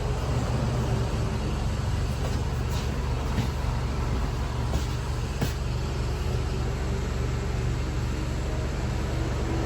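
Steady engine drone of a high-pressure sewer jetting rig running, with a few faint clicks over it.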